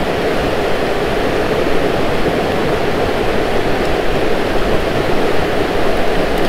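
River rushing steadily, an even loud wash of running water from a small river in high spring flow.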